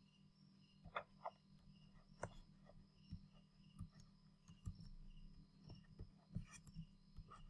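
Near silence: faint room tone with a low hum, a faint high steady tone, and a few faint scattered clicks.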